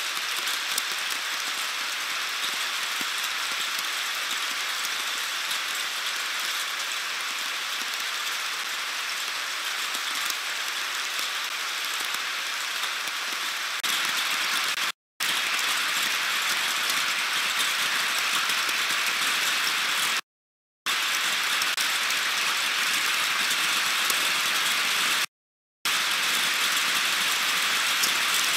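Heavy rain falling steadily, an even hiss with no pauses except three brief total dropouts in the second half.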